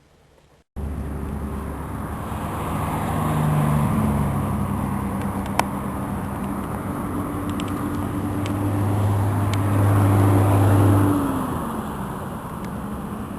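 Motor vehicle running on a road: steady engine hum with tyre and road noise. It starts abruptly about a second in, and the engine tone drops in pitch near the end.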